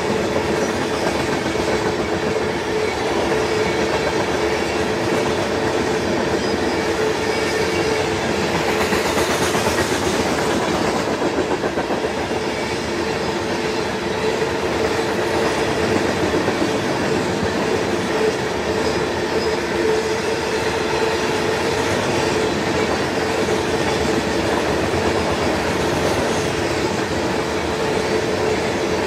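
Freight train of open-top rock hopper cars rolling past close by: steel wheels running on the rails in a steady rumble with a constant hum.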